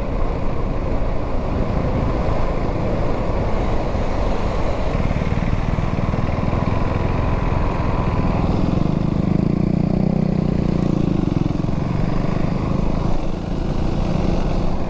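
2025 KTM Duke 390's single-cylinder engine running while the bike is ridden, through its stock exhaust, over a steady rushing noise. The engine note grows stronger from about a third of the way in, peaks past the middle, and then eases.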